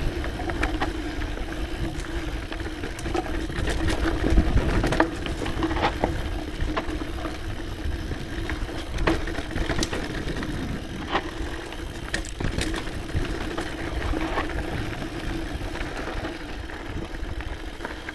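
Scott Genius mountain bike rolling fast down a dirt singletrack: tyre and wind noise with a steady buzz, and scattered sharp clicks and rattles of the chain and bike over bumps and roots.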